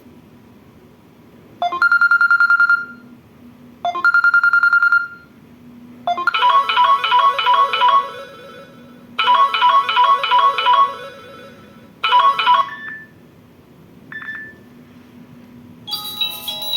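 Samsung Galaxy Young 2 ringtones playing. Two short buzzing, trilled beeps come first, then a bright electronic melody whose phrase repeats three times, the last one cut short. A different, bell-like ringtone starts near the end.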